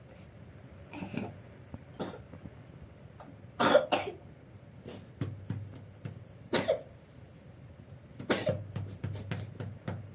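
A person coughing: a series of short coughs, the loudest a quick pair about four seconds in and a cluster near the end.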